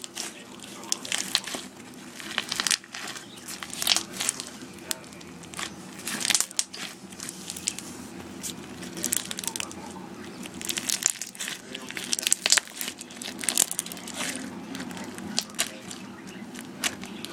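Slime being mixed and squeezed by hand, giving irregular sticky crackles and clicking pops.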